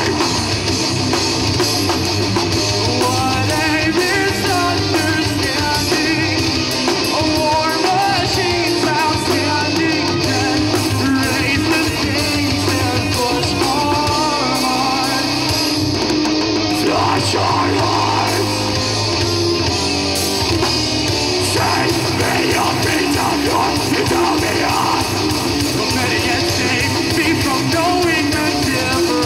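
A heavy metal band playing live: distorted electric guitars, bass and drum kit, loud and dense throughout, with a singer's vocal line over it.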